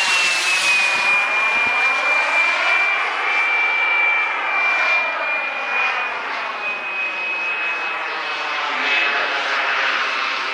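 Small gas turbine of a radio-controlled model jet in flight. A steady high whine rides over a rushing jet noise that swells and sways as the plane passes. The whine drops slightly in pitch about a second in, then holds, and the sound eases a little in the second half.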